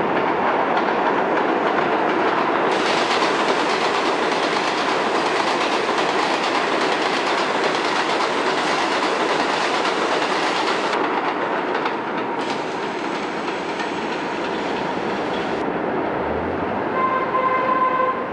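R62A subway train running express through an elevated station without stopping: a loud, steady rumble and rattle of wheels and cars on the elevated track, fullest about a third of the way in as the cars pass and easing off after. Near the end a steady high-pitched tone comes in over the rail noise.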